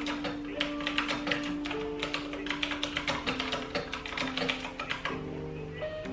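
Typing on a mechanical keyboard: rapid clicking keystrokes that stop about five seconds in, over background music with held notes.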